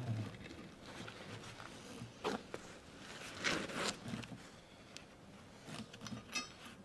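Intermittent scraping and light knocks of hand work in a workshop, with a longer scrape about halfway and a few sharp ticks near the end.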